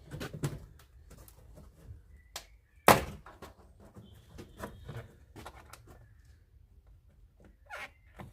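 Trabant 601's Duroplast front wing being worked loose from the body to break the sealant bond between them: a scatter of knocks and clicks, with one loud sharp knock about three seconds in.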